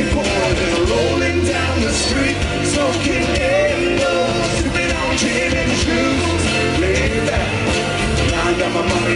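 Live rock band playing: drum kit, acoustic and electric guitars, and a singing voice over a steady beat.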